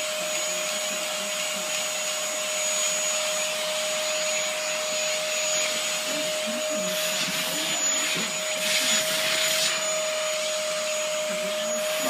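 Vacuum cleaner running steadily with a constant whine over its suction hiss; the hiss grows louder in patches between about seven and ten seconds in as the nozzle is moved about.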